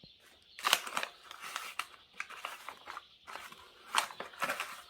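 A tablespoon scooping and scraping dry onion soup mix, with rustling and several short scrapes and clicks; the loudest come about a second in and again near the end.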